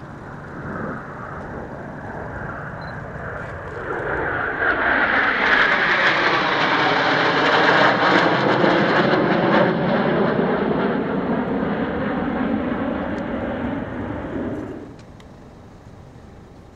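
Formation of jet aircraft flying past, their engine noise swelling to a loud, sweeping roar. It falls away abruptly near the end.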